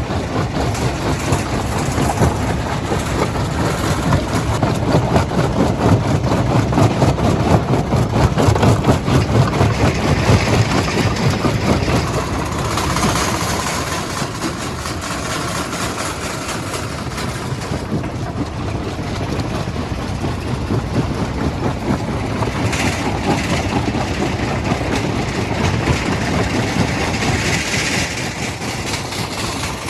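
Heavy machinery of a stone crushing plant running: a steady, loud mechanical noise with a fast rattle throughout, louder for roughly the first twelve seconds.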